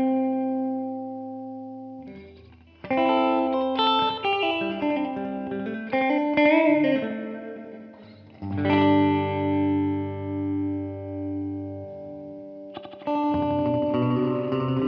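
Electric guitar (Fender Jazzmaster with humbuckers) played through an Ibanez DE-7 delay pedal and a simulated Fender Princeton Reverb amp. It plays ringing chords and single-note phrases, with a bent, wavering line around the middle. A chord struck about halfway through swells and fades in slow pulses, and a new chord comes in near the end.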